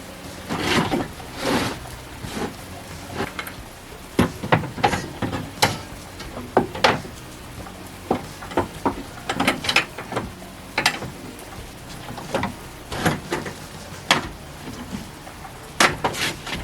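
Irregular knocks, clunks and light scrapes of objects being handled and set down, a dozen or more sharp hits at uneven spacing.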